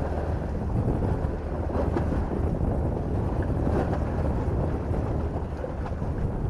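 Wind buffeting the camera microphone: a steady low rumble.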